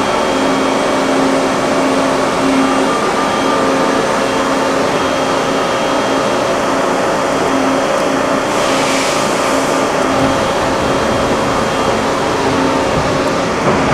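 1984 Niigata HN50A CNC horizontal machining center running: a steady hum with several whining tones, the lowest one switching on and off, and a brief hiss about eight and a half seconds in.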